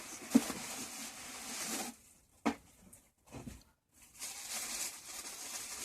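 Packing material rustling and tearing as a parcel is unwrapped by hand. It comes in two stretches, with a short lull between that holds a couple of light knocks.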